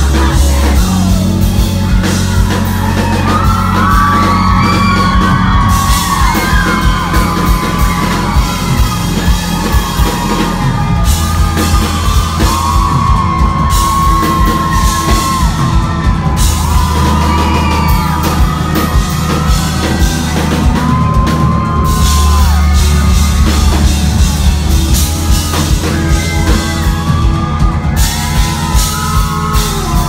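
Live pop-rock band playing loudly, with drums, bass and sustained sung vocal lines, recorded from within the audience.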